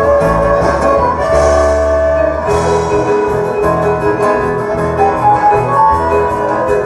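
Band music led by an electronic keyboard with an organ-like sound, over a pulsing bass line and a steady beat.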